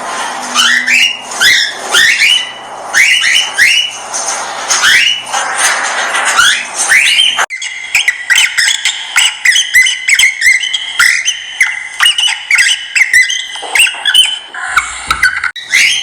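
Small pet parrots chirping: a busy, repeated run of short calls, each rising in pitch. The sound breaks off sharply about halfway through and carries straight on.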